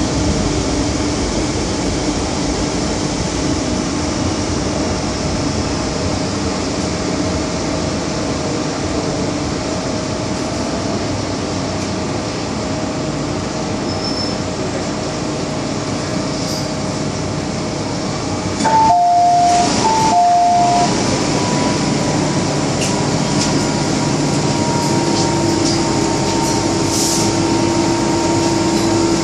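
Steady running noise inside an MTR Kwun Tong Line M-Train carriage. About two-thirds of the way in, a two-note electronic chime, high then low, sounds twice, and a steady whine continues after it.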